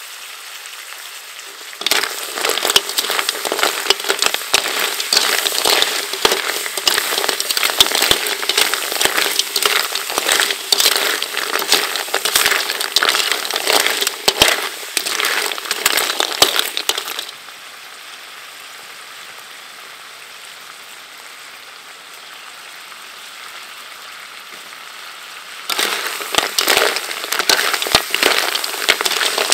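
Stream snails in their shells stir-frying in a metal wok: a steady sizzle, broken by a long spell of fast rattling and clattering as a perforated metal ladle tumbles and scrapes the shells against the wok. The clatter starts about two seconds in, stops after some fifteen seconds leaving only the sizzle, and starts again near the end.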